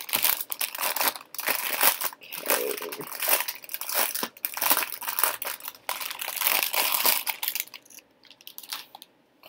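Clear plastic bag crinkling as hands handle and open it to draw out a cotton bag. The crinkling stops about eight seconds in, leaving a few faint ticks.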